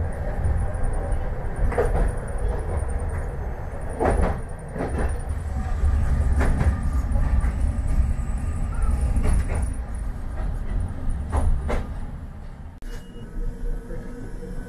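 Hankai tram running on its track, heard from inside the car: a steady low rumble with a few sharp clacks from the wheels. It quietens near the end as the tram slows and stops.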